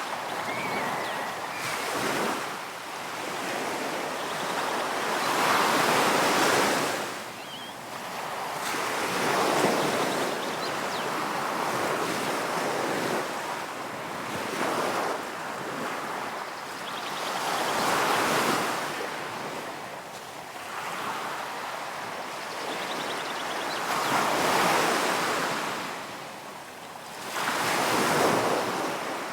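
Ocean surf: waves breaking and washing in one after another, the rush of water swelling and falling every few seconds.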